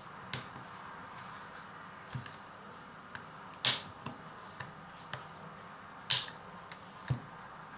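Plastic snap-fit latches of an Asus ZenFone Go's rear housing popping free one at a time as a plastic guitar pick is pried around the edge: four sharp clicks with fainter ticks between.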